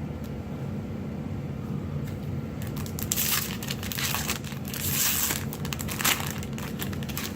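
Foil booster pack wrapper being torn open and crinkled: a run of crackling rustles starting about two and a half seconds in and lasting about three and a half seconds.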